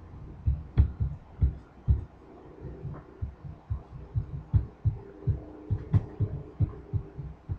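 Marker writing on a whiteboard: the strokes and taps of the pen against the board come through as an irregular run of dull low thumps, about two or three a second.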